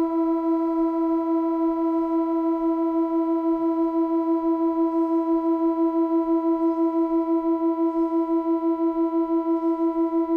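Experimental electronic drone music: one sustained tone held on the note E with a stack of overtones, its loudness throbbing steadily in a beat that quickens slightly. Faint soft puffs of hiss come and go above it every second or two.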